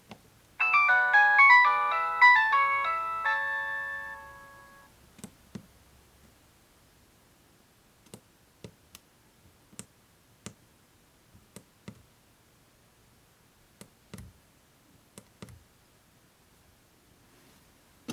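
Nokia 3230 polyphonic ringtone playing a short, fast melody of bright, chiming notes for about four seconds, then fading out. It is followed by about a dozen sharp clicks at irregular intervals.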